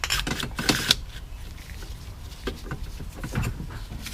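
Recoil pull starter being tested by hand: the rope is drawn out and whirs back in over the spring-loaded pulley, with a cluster of scraping strokes in the first second, then a few light clicks and knocks of handling.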